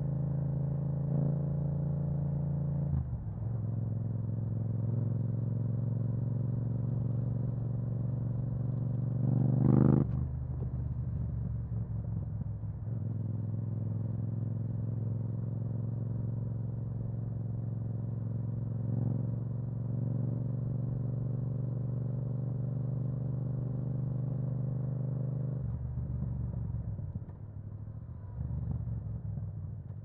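Yamaha MT-07's parallel-twin engine through an Akrapovic exhaust, running at steady revs. Its pitch drops about three seconds in, a sharp rev climbs about ten seconds in (the loudest moment), and it falls back to a lower, quieter note near the end.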